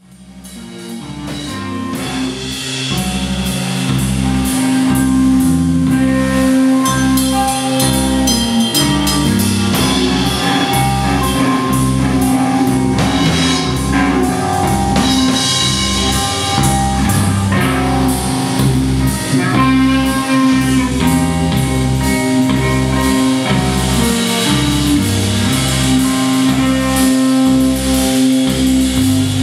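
Live rock band of two electric basses, electric guitar, drum kit and keyboard playing together, fading in over the first few seconds into a loud, steady groove with a driving bass line and a regular drum beat.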